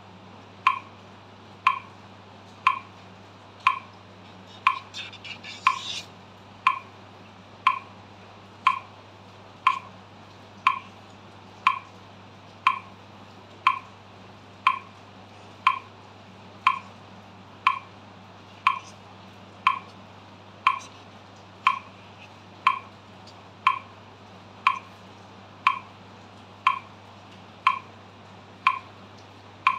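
Metronome clicking steadily at 60 beats per minute, one sharp click each second.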